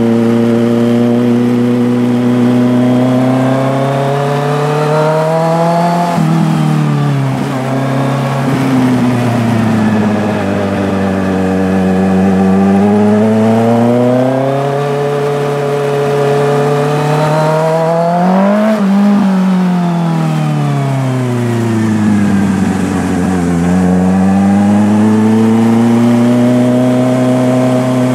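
Engine running continuously, its pitch rising and falling smoothly several times as it speeds up and slows down, with a steady lower tone underneath.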